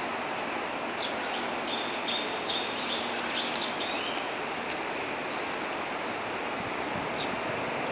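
Several short, high bird chirps, clustered in the first half, over a steady outdoor hiss.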